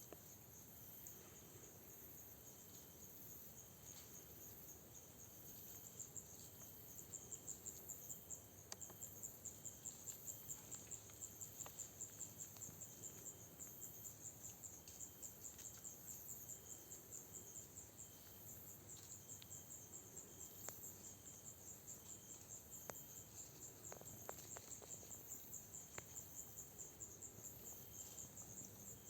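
Crickets chirping steadily in a fast, high pulsing trill, with a lower short chirp repeating about once a second and a few faint clicks.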